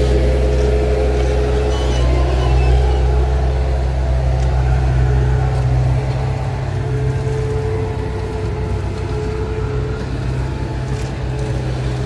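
An engine running steadily, a low, loud rumble that shifts in tone about six seconds in, over the scrape of rakes spreading asphalt.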